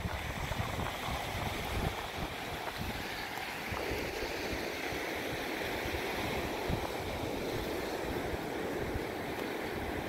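Ocean surf breaking on the shore, with gusty wind buffeting the microphone.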